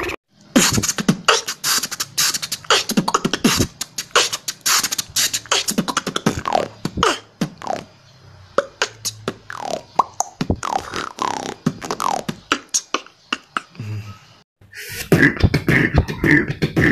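Human beatboxing: rapid mouth-made drum sounds, kicks, snares and hi-hat clicks, mixed with short falling pitched vocal slides. Near the end it breaks off briefly and another beatboxer starts.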